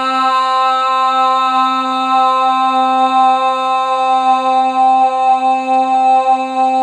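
A single sustained drone held steady on one pitch, a little above middle C, rich in overtones, without a break.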